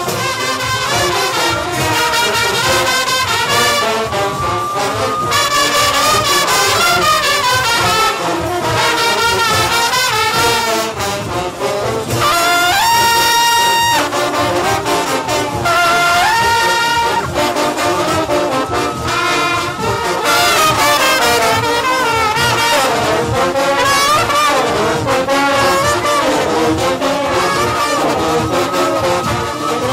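Junkanoo band playing: brass horns carry the melody over a dense, fast beat of percussion, with two long held horn notes about 13 and 16 seconds in.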